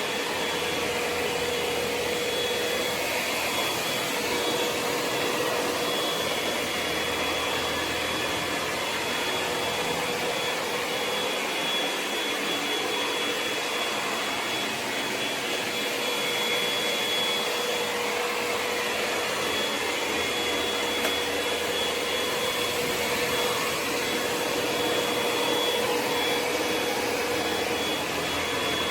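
Ecovacs Deebot X9 Pro Omni robot vacuum running: a steady whir with a constant high whine over it.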